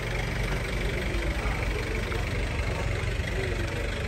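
Mahindra off-road jeep engine idling steadily, a continuous low hum.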